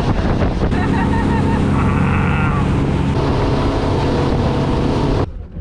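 Twin Suzuki outboard motors running at cruising speed, a loud steady drone, with wind buffeting and the rush of the wake. It cuts off suddenly a little after five seconds in.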